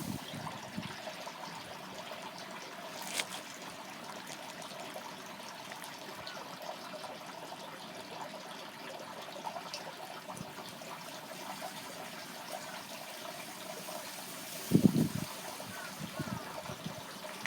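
Steady rush of water flowing through a swollen canal, with a sharp click about three seconds in and a brief low thump near the end.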